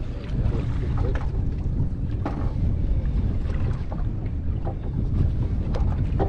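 Wind buffeting the microphone, a steady low rumble, with a few faint short clicks and knocks over it.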